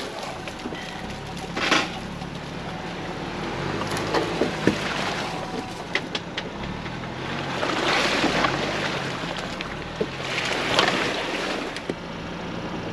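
Ford Bronco's engine running low and steady while crawling a rough off-road trail, under a rushing noise that swells at times, with scattered sharp clicks and knocks.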